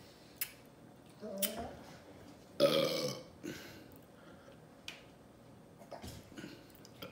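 A woman burping loudly, the loudest burp about two and a half seconds in, with a shorter, lower sound about a second before it and a few small clicks around them.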